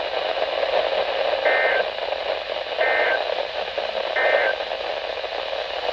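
Hiss of a weak radio signal, with three short identical bursts of warbling data tones about a second and a half apart: the EAS/SAME end-of-message code closing an Emergency Alert System test.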